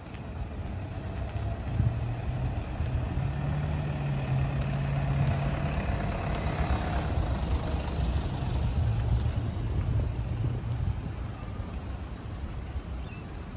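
Toyota Land Cruiser Prado 4WD towing a caravan drives slowly past, its engine running low. Engine and tyre noise grow to their loudest about halfway through, then fade.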